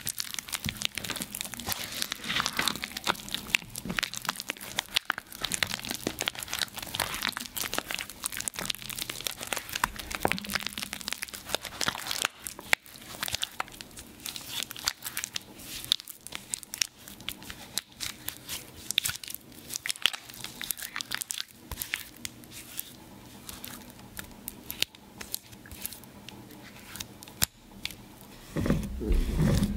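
Reformed gym chalk being crushed by hand: a dense run of crisp crunching and crumbling crackles. A louder low rumble comes in near the end.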